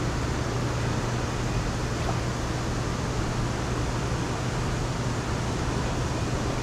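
Boat motor running steadily with a constant low hum, under a steady rush of noise.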